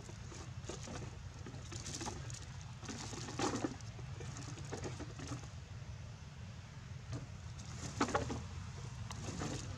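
Light rustling and crackling of dry leaves and plastic bottles as macaques move and forage among them, with two louder crackles about three and a half and eight seconds in, over a steady low background rumble.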